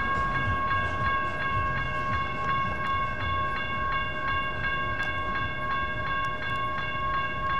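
Electronic railroad crossing bell ringing with rapid, even strikes of a bright tone while the crossing signals are activated.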